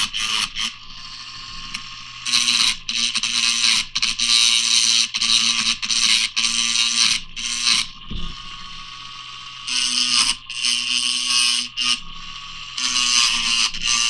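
Dremel rotary tool grinding down the metal post of a diecast toy car, the pitch rising harshly each time the bit bears on the metal and easing back to the free-running motor whine between passes, in bursts of one to five seconds.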